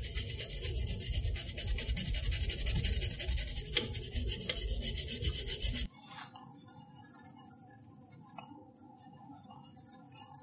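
Toothbrush scrubbing a small circuit board wet with alcohol, in rapid back-and-forth bristle strokes. The scrubbing cuts off abruptly about six seconds in, leaving only faint sounds.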